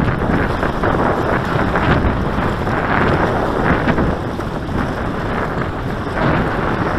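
Strong wind blowing across the microphone, a loud, dense rush.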